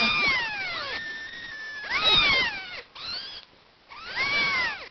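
Kittens mewing: about four high-pitched calls, several falling or rising and falling in pitch, the first ones overlapping.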